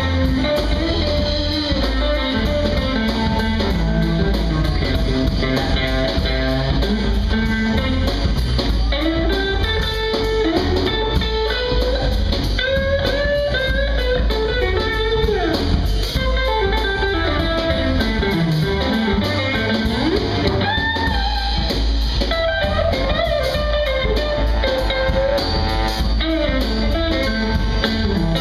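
Live band playing an instrumental blues-funk number: a Stratocaster-style electric guitar up front over upright bass and drums, its lead line sliding up and down in pitch.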